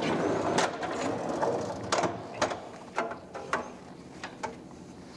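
Plastic bag of soft-serve mix rustling as it is handled, then a series of irregular clicks and knocks as the stainless steel mix drawer is slid shut on its rails.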